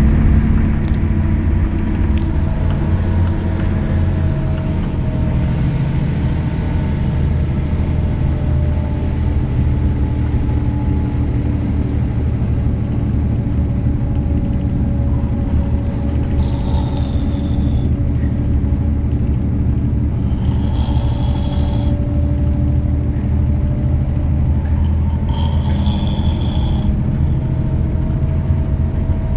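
A man snoring in a moving vehicle, over its steady low rumble; in the second half three snores come about four seconds apart.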